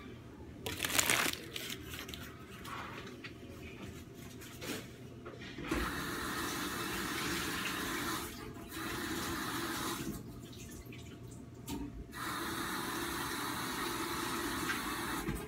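Water running from a tap in steady stretches of a few seconds, starting and stopping abruptly as it is turned on and off, after a brief rustle of handling about a second in.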